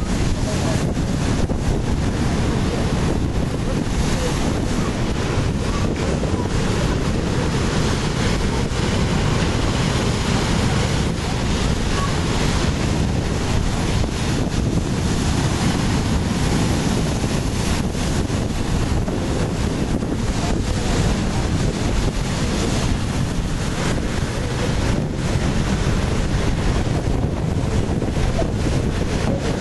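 Surf breaking and washing over a rocky shore, mixed with steady wind buffeting the microphone.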